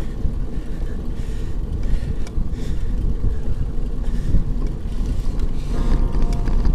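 Wind buffeting the microphone of a camera mounted on a moving road bike, a steady low rumble. A few faint steady tones come in near the end.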